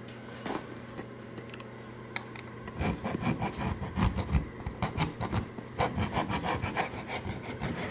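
Hand filing of hardened Bondo body filler on a porch pillar being reshaped: irregular rasping, rubbing strokes that start about three seconds in.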